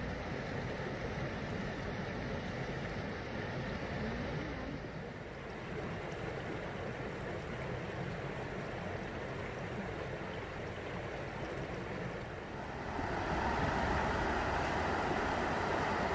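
A steady low rumble and hiss of open air. Near the end it gives way to the louder, even rush of a shallow river running over a low concrete stepping-stone weir.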